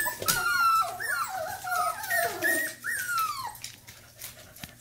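Several Norwegian Buhund puppies, about four and a half weeks old, whining and squealing in high-pitched cries that slide down in pitch and overlap one another. The cries die away after about three and a half seconds, leaving a few faint ticks.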